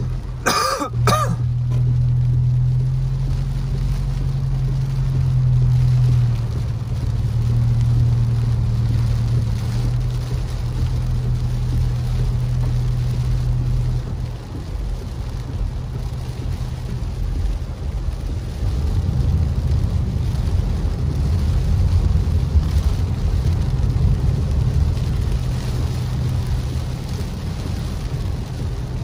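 Car driving on a wet road in rain, heard from inside the cabin: a steady low engine and tyre hum that eases about halfway through, then a rougher rumble of tyres on the wet pavement. A short throat-clearing sound about a second in.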